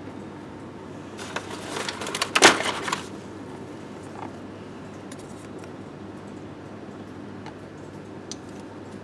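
Plastic toy pieces from an airport play set being handled: a burst of clattering and clicks from about one to three seconds in, loudest halfway through, then a few faint ticks.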